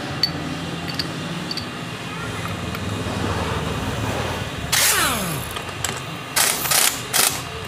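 Impact wrench run in three short bursts on the clutch centre lock nut; after the first burst its motor winds down in a falling whine.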